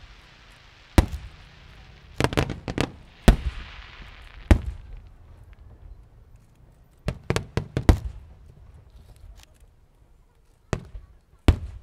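Fireworks bursting: sharp bangs, some single and some in quick clusters, about a dozen in all, over a hissing crackle that dies away about four seconds in.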